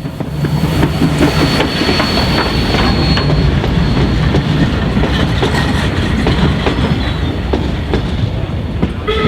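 Heritage train rolling along the track, wheels clicking over the rail joints under a steady rumble, with a thin high wheel squeal for the first few seconds.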